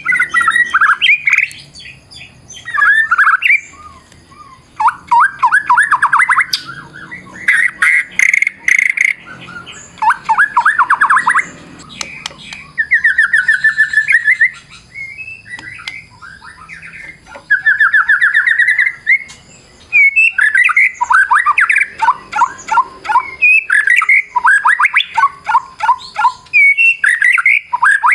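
White-rumped shama (murai batu) in full, varied song: phrases of one to two seconds of rapid trills, rising and falling whistles and chattering notes, with short pauses between them. A few sharp clicks come about eight seconds in.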